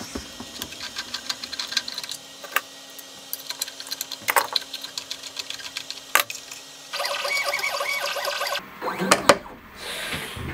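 Desktop CNC machine's stepper motors driving the axes on ball screws: a steady hum with scattered clicks, then a louder, higher whine during a move of about a second and a half near the end, followed by a short loud rattle.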